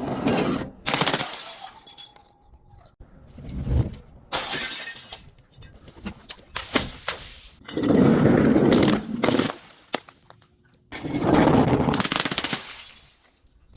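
Glass bottles breaking and shattering under crushing: a series of about six loud, crunching crashes a second or two apart, with smaller cracks of glass between them.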